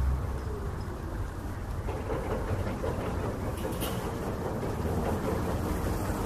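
Steady street traffic noise: vehicles running past with a continuous rumble.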